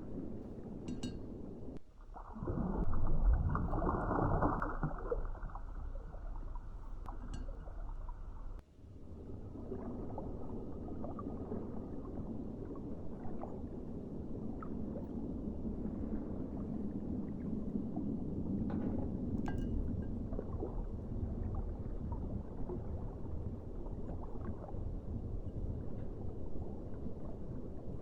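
Hands squishing and stirring water beads in water, a continuous wet squelching and sloshing, louder for several seconds early in the stretch, with a few faint clicks of beads.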